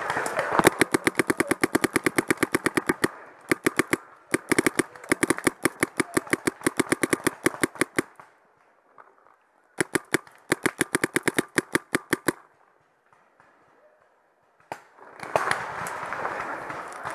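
Paintball marker firing rapid strings of shots, about ten a second, in four bursts with short pauses between them; the last burst stops about twelve seconds in.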